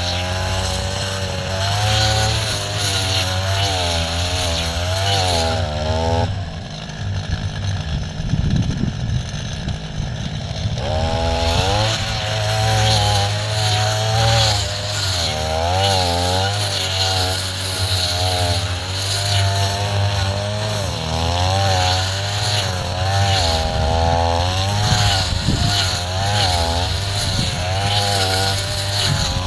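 Two-stroke brush cutter running under load, its engine note rising and falling as the throttle is worked while cutting tall grass. About six seconds in, the clear engine note gives way for some five seconds to a rougher rumble before it returns.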